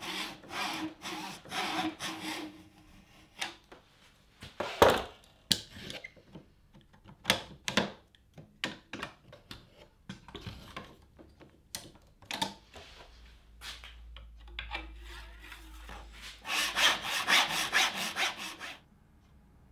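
Fret saw cutting fret slots in a Rocklite Ebano fingerboard through a slotting jig, in quick back-and-forth strokes at about two a second. A pause follows with scattered knocks and clicks, then another run of strokes that stops shortly before the end.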